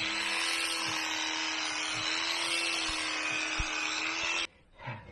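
Electric sheep shears running with a steady hum and buzz, stopping suddenly about four and a half seconds in.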